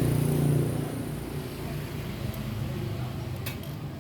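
A motor vehicle engine running nearby, loudest for about the first half second, then dropping back to a lower, steady hum.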